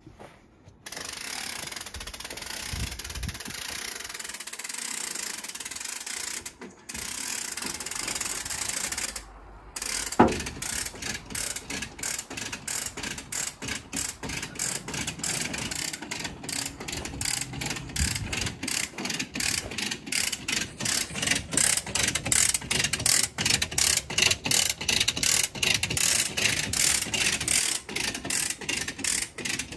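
A steady hiss, a sharp knock about ten seconds in, then a ratchet winch or come-along clicking in a fast even rhythm, about three clicks a second and growing louder, as its chain draws a Fordson Super Major tractor off a flatbed trailer.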